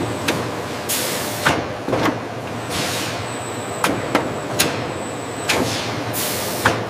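Meat-cutting machinery on a processing line: a steady low hum with about ten short hissing, knocking bursts at uneven intervals, roughly one every half-second to second.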